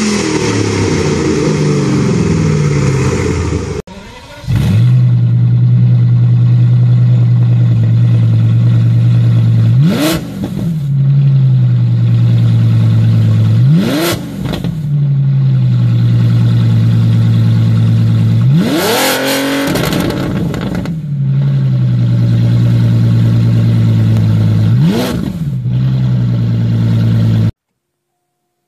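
A Ford Mustang's straight-piped engine, its revs falling, cut off after about four seconds. Then a Volkswagen Phaeton's straight-piped engine idles with a steady low drone and is blipped four times; the third rev is the longest and highest. It stops suddenly about a second before the end.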